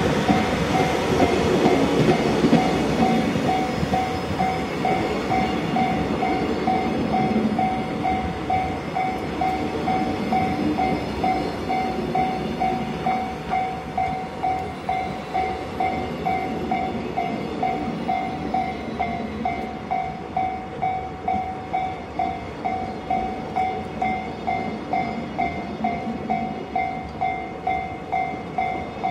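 Container freight train of Koki flat wagons rolling past, wheels and bogies rumbling and clattering on the rails, the noise slowly fading. A steady ringing tone pulses evenly about one and a half times a second alongside it.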